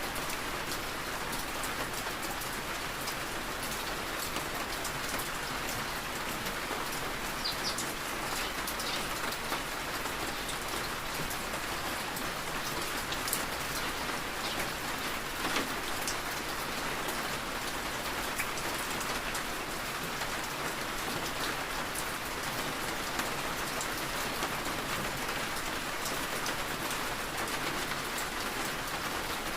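Steady rain falling: an even hiss of rain on a surface, with scattered sharper drop ticks.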